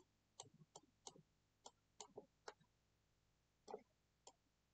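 Faint, irregular clicks of a computer mouse button, about ten of them, as the mouse is used to work in the software.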